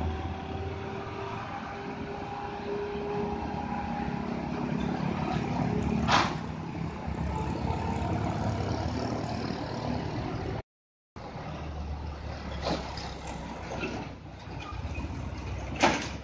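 Small trucks' engines running as they climb a road, with motorcycles passing. There are two short sharp noises, one about six seconds in and a louder one near the end. The sound drops out for a moment about eleven seconds in.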